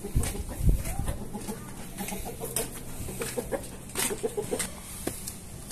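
Short repeated clucking calls of a bird, in clusters, with footsteps in sandals on a concrete path.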